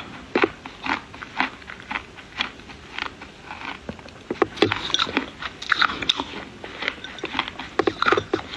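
Someone biting and chewing dry chunks of Chinese clay: a run of sharp, irregular crunches, a few a second, coming thicker about halfway through.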